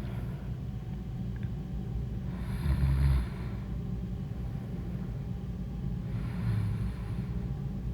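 A woman snoring deeply in her sleep, one snore about every four seconds; the louder one comes about three seconds in, a second one near the end.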